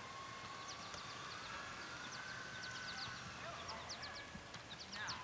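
Birds chirping in the background: many short, quick high calls, over a faint steady whine that drifts slightly in pitch.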